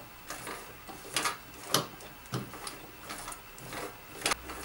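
Domestic sewing machine stitching slowly through thick layers of webbing and fabric, a stitch at a time: a series of separate clicks and knocks, roughly two a second.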